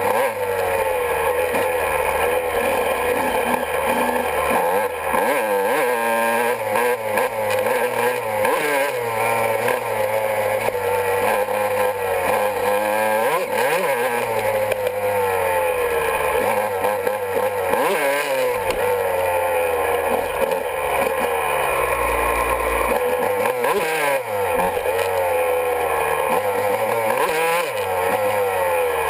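Honda CR125's two-stroke single-cylinder engine revving up and down as the dirt bike is ridden along a trail, its pitch rising and falling every second or two.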